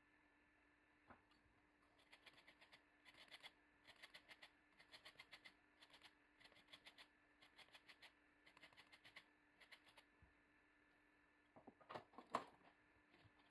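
Orange zest being grated on a small handheld grater: faint, quick rasping strokes in short runs of several. Near the end, a few louder knocks.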